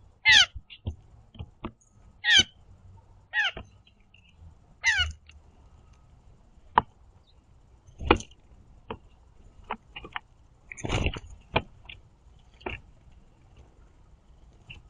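Blue jays giving short squeaky calls, four in the first five seconds, then a run of sharp taps and knocks from the birds on the platform feeder.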